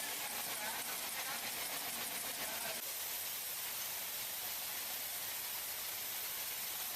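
Steady hiss of factory machinery running, with a slight shift in its tone about three seconds in; the sound cuts off abruptly at the end.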